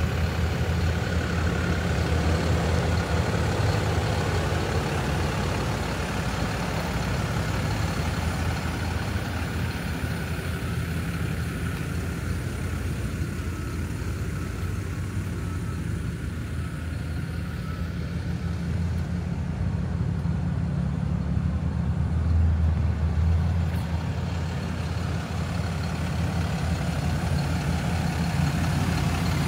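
Cummins inline-six turbo diesel of a 2024 Ram 5500 chassis cab idling steadily, a low, even hum that swells slightly about three-quarters of the way through.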